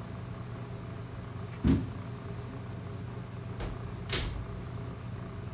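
Trading cards being handled and flipped to the next one: two short rustles, about two seconds and four seconds in, over a steady low hum.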